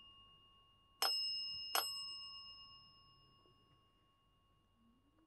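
Chrome desk bell struck twice, about a second in and again under a second later, each ding ringing on and dying away slowly.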